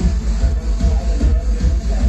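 Loud electronic-leaning music played through a club PA, with a heavy, pulsing bass beat.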